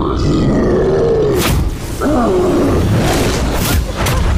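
Film sound design for a giant two-headed shark: deep, growling monster roars over a heavy low rumble, broken by several short, sharp hits.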